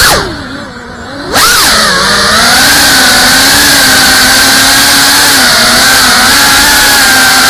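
FPV quadcopter's brushless motors and propellers whining, picked up by the camera on board. The throttle is cut at the start: the pitch falls and the sound goes quieter for about a second. Then it rises sharply and holds a steady whine as the drone cruises low.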